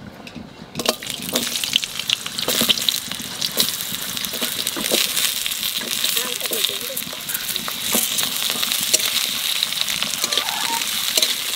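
Potato wedges tipped into hot oil in a kadai start sizzling about a second in and keep frying steadily, with a few knocks and scrapes from a spatula stirring them.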